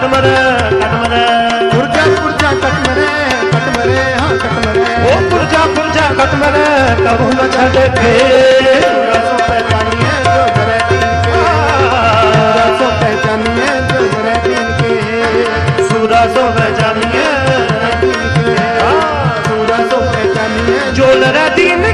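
Kirtan music: a harmonium playing the melody over a continuous tabla accompaniment.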